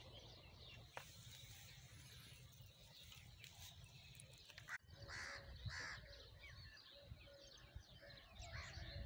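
Faint rural outdoor ambience with crows cawing, two short caws a little past halfway, and small birds chirping faintly near the end.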